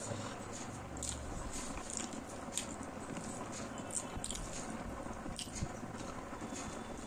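Close-miked wet chewing of a mouthful of rice, with many short sharp mouth clicks and smacks scattered through.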